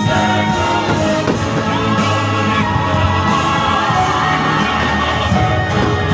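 Loud fireworks-show soundtrack music with a choir singing.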